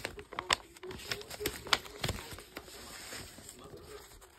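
Sheets of drawing paper and the phone handled and moved about: a quick run of sharp taps, clicks and rustles, thinning out and getting quieter toward the end.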